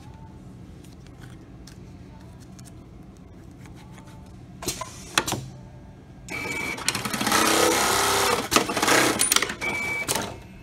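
Programmable pattern sewing machine running a cycle: two short sharp clacks as the clamp and label holder move, about five seconds in, then a loud, fast stitching rattle for about four seconds as it sews the label on.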